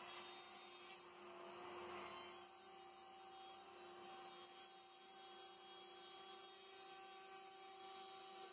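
Compact hand router fitted with a guide bushing, running steadily while it routes along the edge of a plywood template: a faint, even motor hum.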